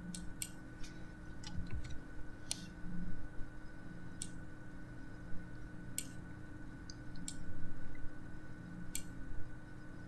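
About nine sharp computer-input clicks at uneven intervals, over a steady hum with a thin high whine.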